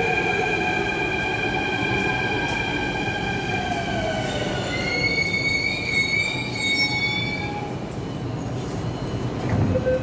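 Delhi Metro Violet Line train pulling into the platform and stopping. Its traction-motor whine falls in pitch as it slows, a high-pitched squeal sets in about halfway through as it brakes to a halt, and there is a thump just before the end.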